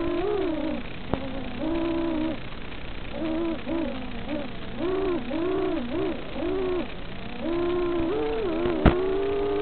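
Racing quadcopter's brushless motors (2206 2600KV) whining, the pitch rising and falling in short surges as the throttle is punched and eased through the gates, over a steady hiss of the analog video link's audio. A single sharp click near the end.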